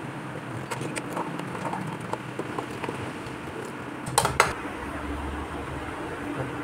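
Metal ladle stirring thick tomato gravy in a large aluminium pot, with light scrapes and small clicks over a steady hiss, then two sharp knocks of the ladle against the pot a little after four seconds in.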